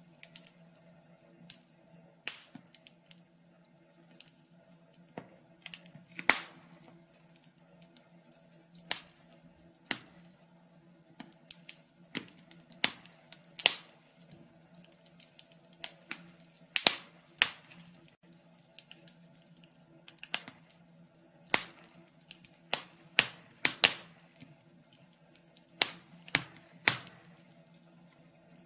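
Wood fire crackling: irregular sharp pops and snaps, a few much louder than the rest, over a faint steady low hum.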